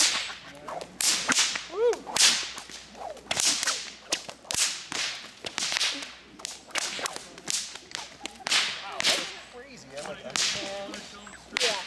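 Two long whips being cracked over and over: sharp cracks, about two a second at an uneven pace, often in quick pairs as both whips crack close together.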